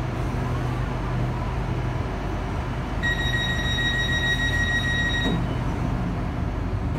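Steady hum inside a stationary Hitachi-built electric commuter train. About three seconds in, a steady high electronic warning tone sounds for about two seconds and then stops, typical of the train's door warning.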